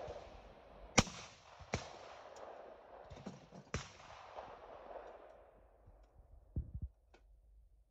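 Over-and-under shotgun shots at clay targets: one loud, sharp crack about a second in, then several fainter cracks over the next few seconds. Near the end there is a short cluster of clicks as the gun is handled.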